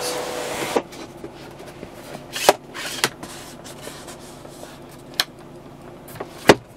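A power sunroof motor whirs steadily and stops with a click under a second in. Then come a few sharp clicks and knocks as the sun visor is flipped down and its vanity-mirror cover is snapped open, the loudest about two and a half seconds in and again near the end.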